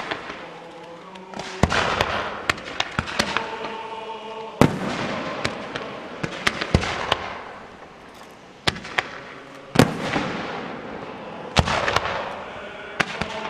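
Fireworks going off: repeated loud bangs at irregular intervals, each followed by a crackling trail that fades over a second or two.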